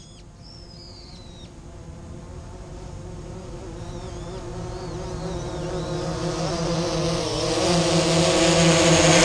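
Quadcopter drone's propellers buzzing, growing steadily louder as it approaches, the pitch wavering slightly. A few bird chirps in the first couple of seconds.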